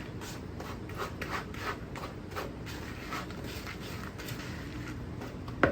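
Crumb topping of crushed vanilla wafers, sugar, cinnamon and melted butter being stirred in a bowl: a run of soft, repeated scraping and rubbing strokes, about two or three a second, with a couple of sharper knocks near the end.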